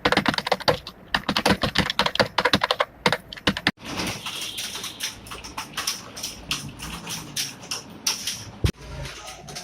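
Rapid typing on a keyboard: a fast, steady clatter of keystrokes that breaks off abruptly about four seconds in, then carries on more faintly.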